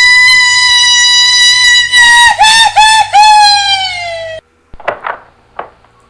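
A woman's terrified scream: one long, very high shriek held steady, breaking three times in quick succession about halfway through, then sagging in pitch and cutting off abruptly. A few faint, short cries follow near the end.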